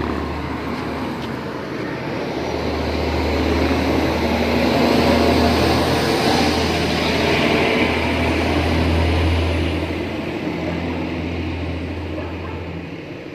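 Road traffic passing close by: vehicle engines and tyres swell to a peak in the middle and fade away near the end, over a steady low engine hum.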